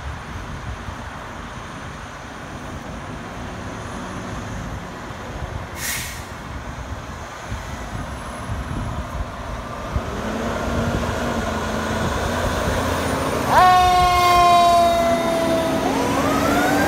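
Fire ladder truck's diesel engine running and growing louder as it pulls out and passes, with a short sharp hiss of air about six seconds in. About thirteen and a half seconds in a loud horn blast sounds for a couple of seconds, its pitch sagging slightly, and near the end the siren starts winding up.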